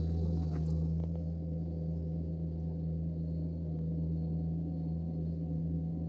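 Gehl CTL65 compact track loader's diesel engine running at steady revs, a constant low hum.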